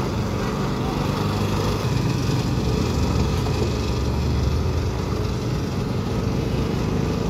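Motor-driven sugarcane juice crushing machine running, turning its large flywheel and rollers with a steady low drone.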